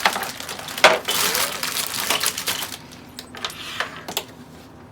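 Plastic toy play-set pieces being handled and fitted together: a sharp knock a little under a second in, then a stretch of dense clicking and rustling, thinning to scattered lighter clicks in the second half.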